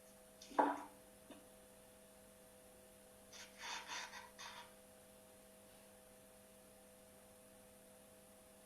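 Quiet room tone with a steady faint hum. A brief vocal sound comes about half a second in, then a cluster of several short, breathy puffs of breath or whispering around the middle.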